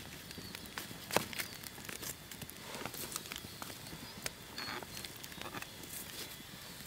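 Wood campfire crackling, with irregular snaps and pops; the sharpest pop comes about a second in.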